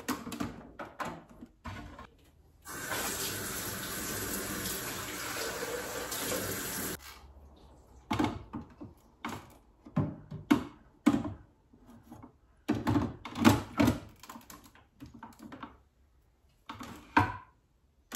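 Kitchen tap running steadily for about four seconds, between plastic clicks and knocks from handling a Dolce Gusto capsule coffee machine.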